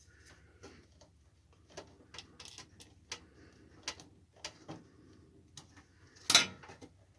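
Scattered small clicks and taps of hand tools and wire being handled during wiring work on a welding gun, with one much louder click about six seconds in.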